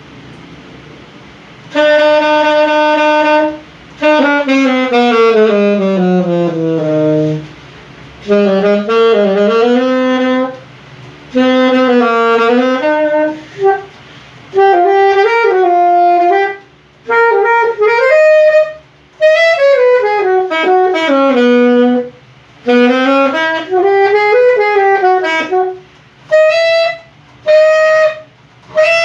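Lade alto saxophone being played: a long held note, then a slow downward slide, then short melodic phrases full of bent, sliding notes with brief pauses between them.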